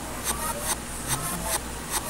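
Audio played backwards: garbled, reversed voice sounds that glide up and down, over a beat of sharp ticks coming a few times each second.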